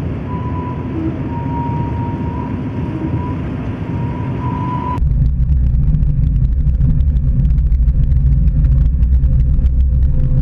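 ZooLiner miniature streamliner locomotive running over a trestle: a steady running noise with a faint steady whine. About five seconds in it changes suddenly to a heavy low rumble, heard up close from the side of the moving locomotive.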